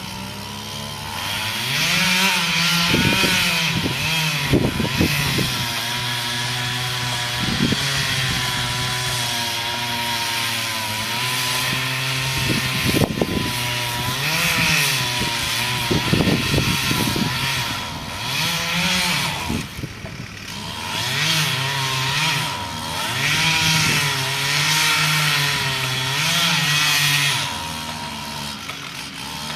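Chainsaw running and cutting wood, its engine speed rising and falling again and again, with a few sharp knocks or cracks along the way.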